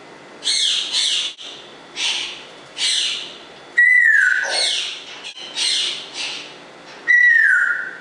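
African grey parrot making a string of short hissy calls, broken by two loud whistles that start high and dip slightly, each held for under a second.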